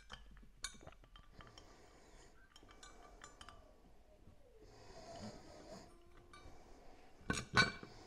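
Small metal clicks and clinks of bolts and a hex key being worked on a brake rotor and wheel hub, with a stretch of soft noise midway and two sharp knocks close together near the end, the loudest sounds.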